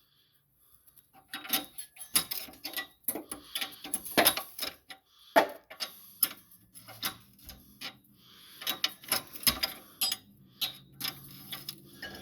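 A 19 mm wrench working the nuts onto U-bolts, a run of irregular metallic clicks and clinks that starts about a second in.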